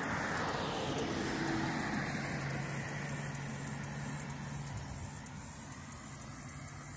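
A road vehicle passes close by, its noise peaking and falling in pitch as it goes past, then fading to a steady low hum.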